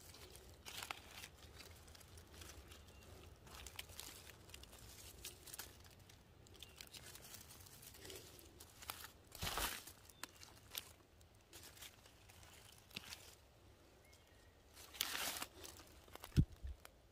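Dry leaf litter rustling and crackling under hands picking mushrooms, with a paper bag crinkling as they go in. Louder rustles come about halfway through and near the end, with a sharp snap just before the end.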